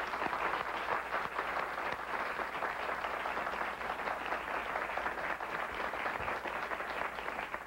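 Studio audience applauding, a steady dense clapping from many hands.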